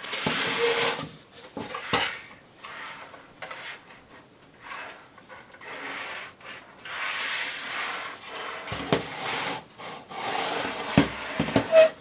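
The MakerBot Cupcake's plywood enclosure being handled and turned on a table: irregular rubbing and scraping of wood, with a few sharp knocks, the loudest near the end.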